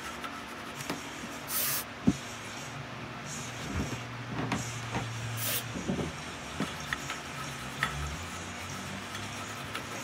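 Metal parts being handled on a workbench: scattered clicks and a sharp knock about two seconds in, two short hissing sounds, and a brief low hum near the middle.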